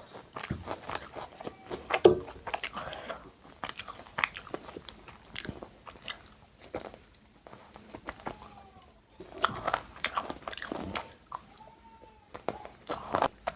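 Close-up eating sounds: a person biting and chewing food, with crisp crunches and wet mouth clicks coming in irregular bursts.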